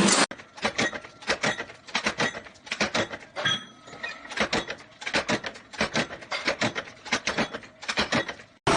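Rapid, irregular clacking and scraping from a machine at work, several strokes a second with short pauses between runs.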